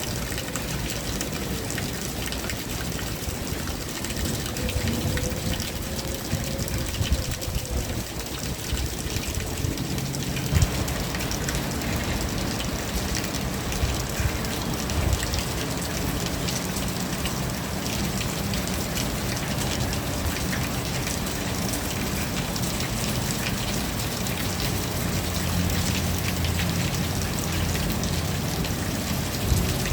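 Steady rain falling on surfaces, with a faint wavering tone in the first several seconds and a low rumble underneath from about ten seconds in.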